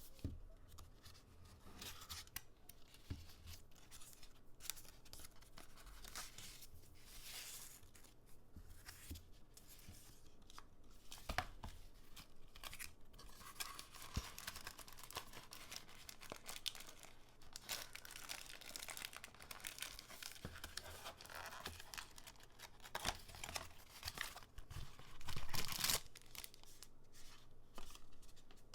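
Product packaging being torn open and crinkled by hand: irregular rustles, scrapes and rips, with one louder tear near the end.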